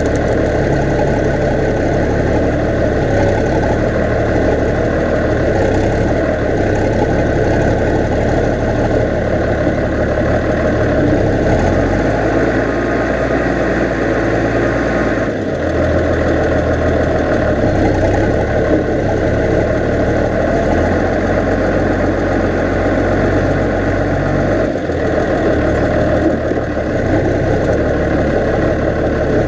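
New Holland 8160 tractor's diesel engine running steadily under load while pulling a four-furrow reversible plough. The low drone dips briefly twice, about halfway through and again near the end.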